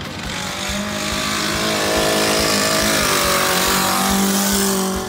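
Vintage hot rod's engine running hard under power as the car slides past through a dirt-track bend. It is joined by a loud hiss of loose sand and dirt spraying from the rear wheels, which builds about two seconds in and fades near the end.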